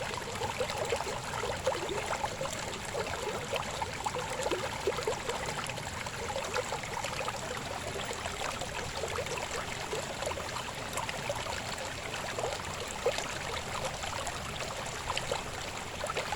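River water babbling steadily, full of small quick gurgles.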